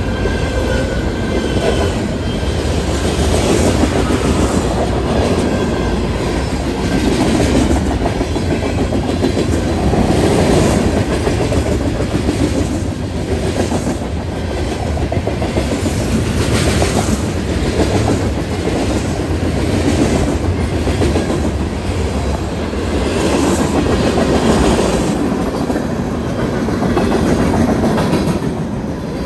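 BNSF freight cars rolling past: a steady rumble of steel wheels on rail with clickety-clack over the joints, swelling and fading every few seconds as each car's trucks go by. There is a faint wheel squeal near the start.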